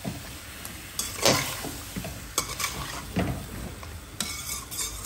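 Metal spoon stirring sliced gourd as it fries with turmeric in a metal pot, over a steady sizzle. A handful of sharper scrapes and knocks come where the spoon hits the pot's sides.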